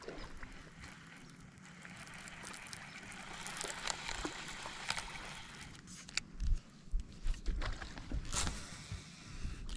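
Water splashing and rushing around a boat, swelling to a hiss a few seconds in, followed by several low thumps and sharp knocks.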